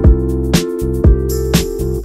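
Background music with a steady drum beat, about two hits a second under held instrumental notes.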